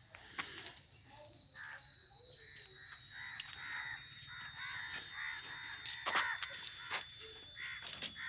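Crows cawing, a run of short calls one after another, with a few sharp knocks in the second half.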